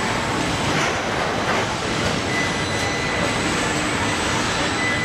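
Steady, dense machinery noise from a robotic car-body welding line, a rumble and hiss without a beat, with a faint high whine coming in about two seconds in.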